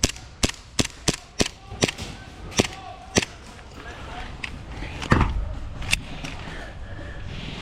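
Airsoft gun firing single shots in quick succession, about two to three a second, a sharp crack each time, thinning out after about three seconds. A louder, deeper thud comes about five seconds in.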